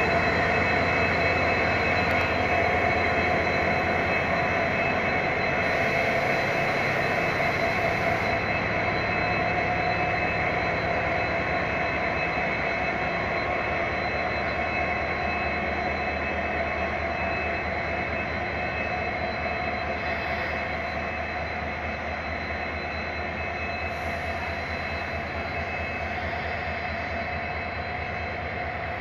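WDG-4 diesel-electric locomotive's 16-cylinder two-stroke EMD engine running steadily with a high whine, slowly getting quieter as the locomotive eases away.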